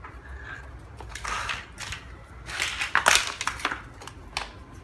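Hard plastic toy race-track pieces being handled and fitted together: crackling, rustling bursts, loudest about three seconds in, then a short click.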